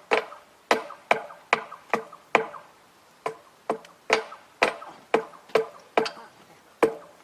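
Repeated sharp strikes, like a hammer on metal, about two a second with uneven spacing. Each blow has a short ringing tone.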